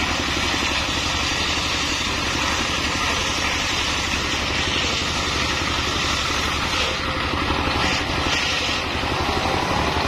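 Single-cylinder diesel engine running steadily under load, driving a circular sawmill blade as a mahogany log is fed through the cut, with a continuous hiss of sawing over the engine's drone.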